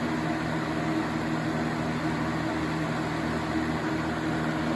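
Galaxy B20100 box fan running on high speed: a steady motor hum with a rush of air, quiet for a box fan.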